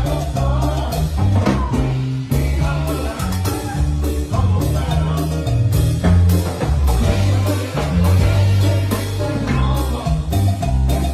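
Live band playing up-tempo Latin dance music with bass, drum kit and percussion, and a voice singing at times.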